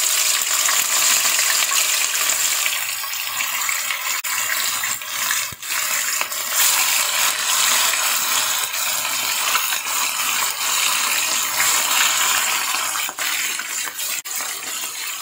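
Marinated tuna pieces frying in hot oil in a wok: a loud, steady sizzle with scattered sharp crackles as more pieces go into the oil.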